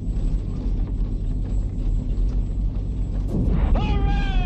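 Steady deep rumble of a B-52 bomber in flight, heard from inside the cockpit, with a short high-pitched shout near the end.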